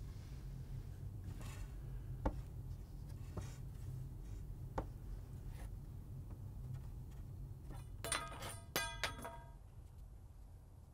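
Foley for a small wooden armature puppet on a thin metal rod: a few sparse light clicks and taps over a low steady hum, then a quick cluster of ringing metallic clinks about eight seconds in.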